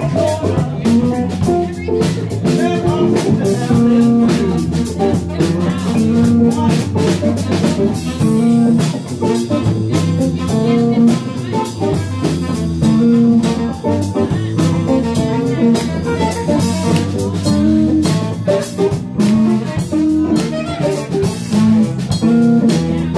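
Small live band playing an instrumental jam passage, with a drum kit keeping time over electric guitar and electric bass.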